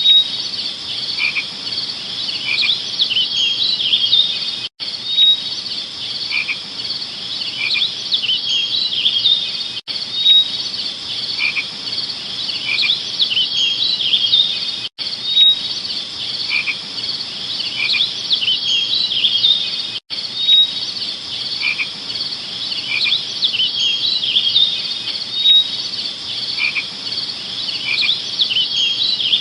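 A chorus of chirping insects: a steady high trill with short chirping calls repeating over it. It is a loop of about five seconds that repeats, with a brief dropout at each join.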